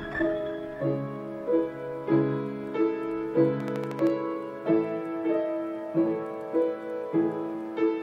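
Music: a piano-like keyboard plays a repeating pattern of chords, a new chord about every two-thirds of a second.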